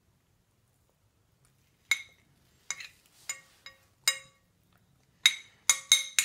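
Metal spoon clinking against a plate: about ten sharp, ringing clinks starting about two seconds in, in two bunches, the last few the loudest.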